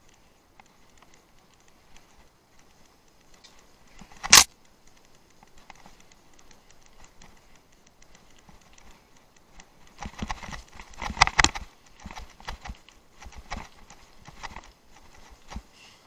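Sharp knocks and clattering clicks. There is one loud knock about four seconds in and a burst of rattling clicks from about ten to twelve seconds in, with faint scattered ticks in between.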